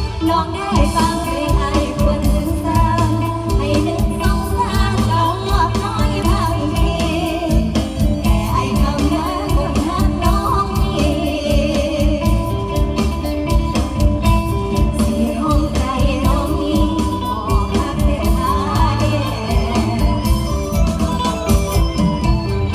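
Live Isan luk thung–mor lam band music: a vocal line sung over a steady, driving drum beat and full band accompaniment.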